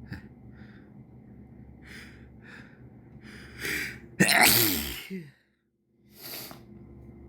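A person sniffing a few times, then gasping in a quick build-up and letting out one loud voiced sneeze that falls in pitch. A short breath follows near the end.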